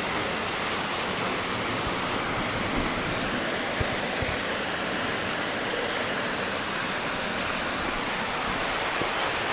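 Heavy rain pouring down like crazy, a steady even hiss of the downpour.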